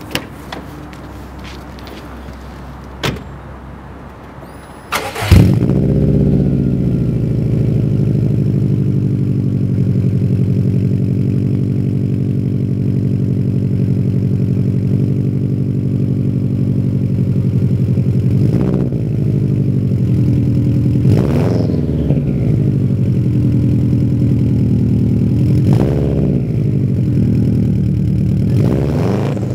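2002 Subaru WRX's turbocharged 2.0-litre flat-four starting through a 3-inch Invidia turbo-back exhaust with downpipe. It catches about five seconds in, then settles into a steady deep idle, with four short throttle blips in the second half.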